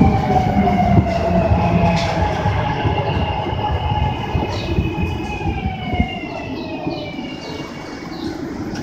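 SEPTA Market–Frankford Line subway-elevated train pulling into the station: its electric traction motors whine in several tones that slide steadily down in pitch as it brakes, over a rumble of wheels on rail that fades as it slows.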